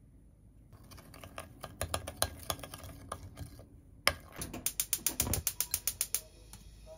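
Metal teaspoon stirring a dressing in a small glass bowl, clinking rapidly against the glass. After a short pause it starts again with a loud clink and faster, louder clinking, then stops about a second before the end.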